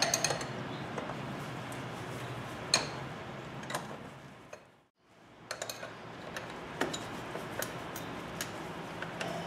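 Light metallic clicks and ticks from a motorcycle chain breaker tool and a combination wrench, worked on the chain to press out a master-link rivet. The clicks are scattered, with two sharper ones about three and four seconds in, and a second of silence about halfway.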